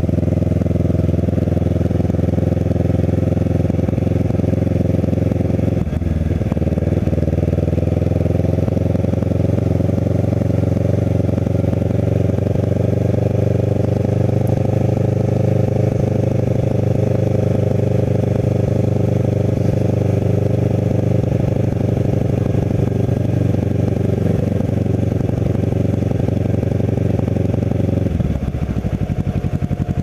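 Kawasaki Ninja 650R's parallel-twin engine running at low road speed, heard from the rider's seat. The engine note briefly breaks and dips about six seconds in. Near the end the steady note falls away as the bike slows for a stop.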